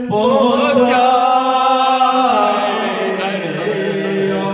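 A man singing a naat, an Urdu devotional song in praise of the Prophet, holding long, ornamented notes that glide up and down, over a steady low held note.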